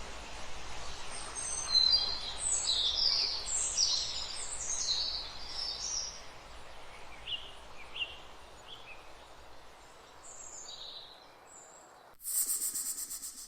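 A bird calling in a quick series of high chirps over a steady background hiss, tailing off into scattered calls. Near the end a loud, rapid, high rattling hiss cuts in suddenly.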